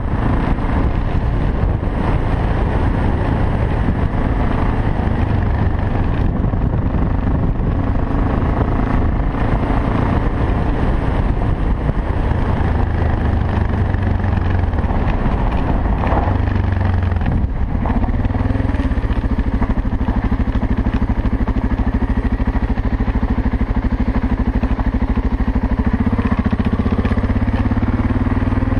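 BMW 650 GS single-cylinder engine running while the motorcycle is ridden along a gravel road. About seventeen seconds in the sound dips briefly, then the engine holds a steadier note.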